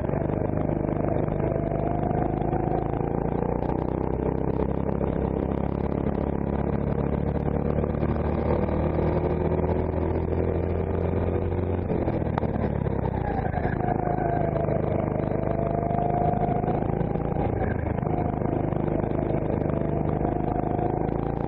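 Rental kart engine running at full throttle, its pitch climbing steadily for about twelve seconds as the kart gathers speed. The revs then drop suddenly as the throttle is lifted for a corner, dip, and climb again on the way out.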